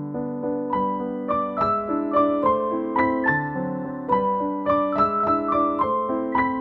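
Background piano music: a gentle running pattern of struck notes, with higher notes joining about a second in.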